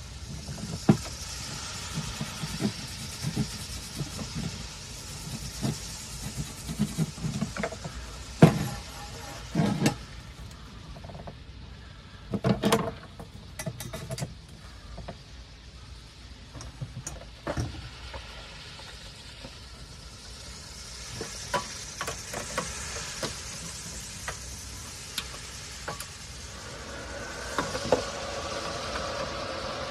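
Scattered knocks and clanks of stainless steel box-section tube being handled and set in place, over steady wind noise. A steady hum comes in near the end.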